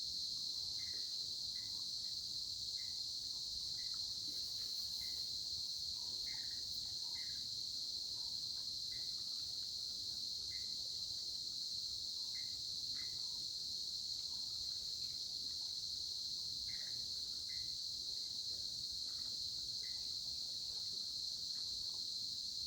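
Steady, unbroken high-pitched trilling of an insect chorus, crickets or the like, with short chirps scattered through it about once a second.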